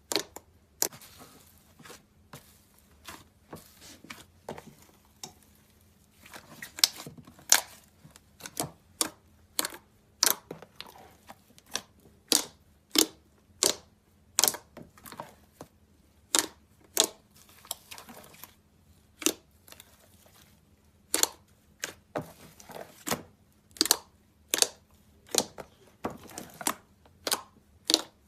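Crunchy slime being squeezed and pressed, giving sharp crackles and pops. They are faint at first, then from about six seconds in come louder, about once or twice a second.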